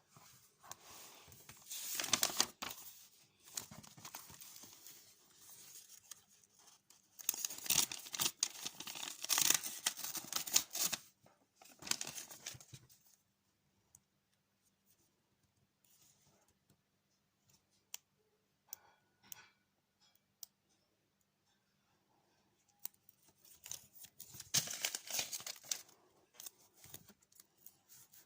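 Paper being handled close to the microphone: several bursts of rustling, crinkling and tearing or cutting, with a quiet stretch in the middle broken only by a few light clicks.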